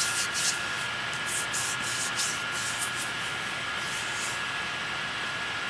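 Steady background hiss with a faint electrical tone, and a few soft, brief scratchy rustles in the first couple of seconds, like skin or packaging being handled.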